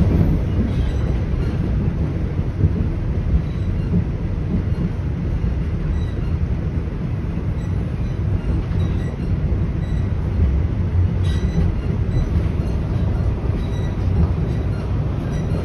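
Toronto Rocket subway train on TTC Line 1 running between stations, heard from inside the car: a steady low rumble of wheels on rail and traction motors, with faint light ticks here and there.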